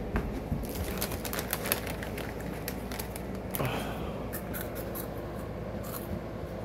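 Crinkling and crunching from a bag of Flaming Hot Cheetos being handled and the chips eaten, in quick crackly clicks. The clicks come in two clusters, one about a second in and another around five seconds in.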